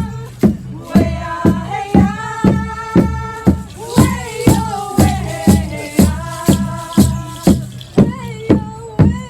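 Music with a steady drumbeat of about two beats a second, shaken-rattle strokes and singing voices.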